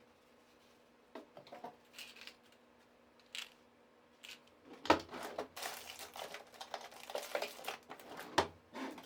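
Objects being handled in a small room: a few scattered clicks and knocks, then from about five seconds in a dense stretch of rustling, crinkling and clattering with two sharp knocks.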